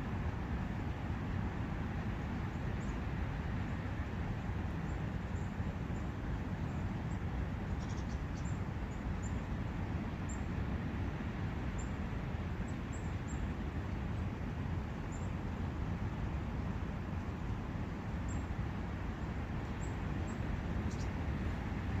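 Steady rush of a forest brook, with faint, short high bird chirps now and then.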